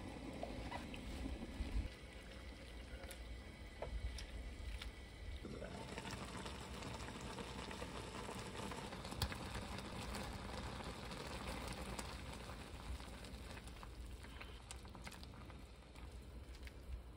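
Mallow and dried-shrimp soup boiling in an enamelled cast-iron pot, a steady bubbling with small pops that grows fuller about five seconds in. A wooden spatula stirs the soup near the end.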